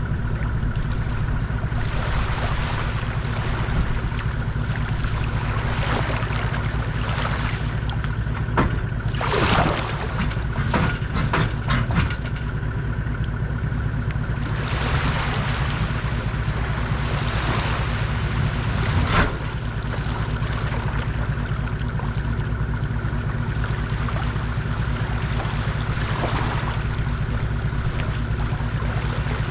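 Steady low hum of the tow vehicle's engine idling under small waves washing on the beach. About ten seconds in comes a run of clicks and knocks at the trailer, then a rushing swell of water noise that ends in a sharp knock near nineteen seconds as the aluminium boat comes off its trailer.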